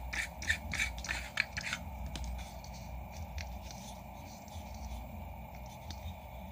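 Plastic diffuser dome of an LED bulb being twisted and worked loose by hand, plastic rubbing and scraping against the bulb's housing. It starts as a quick series of scraping strokes, about four a second, over the first two seconds, then goes on as fainter rubbing.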